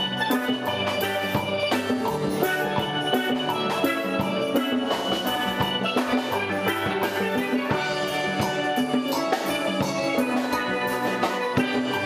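Steel band playing: a group of steel pans tuned to different pitches, struck with mallets in a steady, rhythmic tune, many short ringing notes sounding at once.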